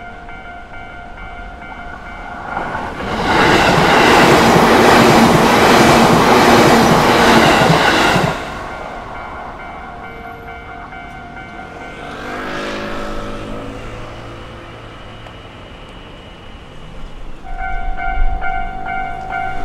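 Japanese level-crossing warning alarm ringing steadily, while an electric train rushes past loudly for about five seconds a few seconds in. About two-thirds through a quieter train passes with a gliding pitched whine, and the crossing alarm rings louder again near the end.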